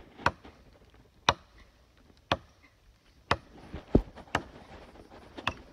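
Wood being chopped with a hand-held blade: seven sharp strikes, mostly about a second apart.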